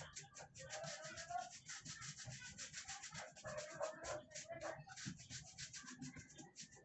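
A paintbrush scrubbing latex paint onto a plywood cabinet panel in quick back-and-forth strokes, several a second, the bristles rasping on the wood.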